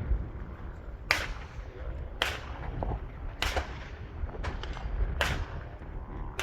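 Gunshots at a shooting range: five sharp reports with short echoing tails, evenly spaced about a second apart.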